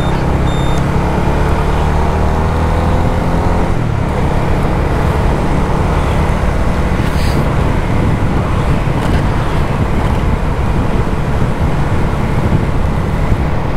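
Motorcycle engine under way, its note climbing steadily through the first four seconds as it speeds up. After that a steady rush of wind and road noise takes over.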